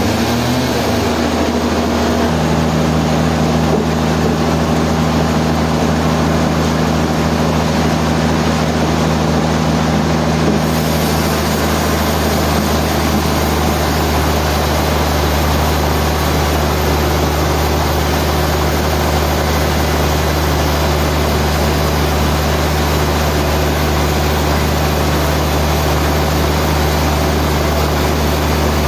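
Sawmill machinery running steadily: a loud, constant low hum under a broad mechanical noise. One tone comes in about two seconds in, and another drops out around eleven seconds in as the higher noise fills in.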